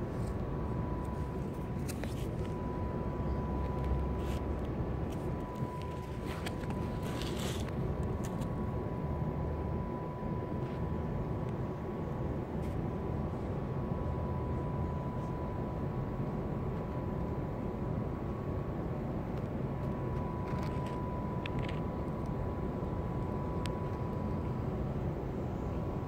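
Steady outdoor background rumble, with a faint high steady tone and a few brief scrapes or rustles.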